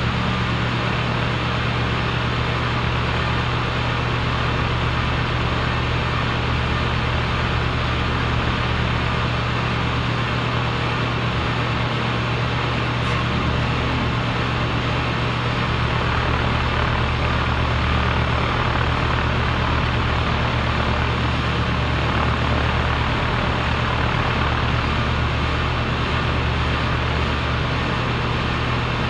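A compressor running steadily: a constant low hum with an even hiss over it, unchanging throughout.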